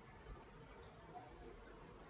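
Near silence: faint room tone on a call recording.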